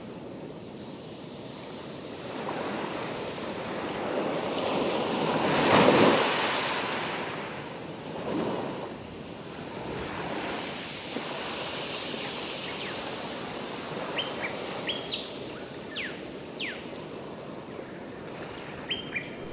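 Sea waves surging and washing on a shore, swelling and falling back, with the biggest surge about six seconds in. A few short high bird chirps come in the last few seconds.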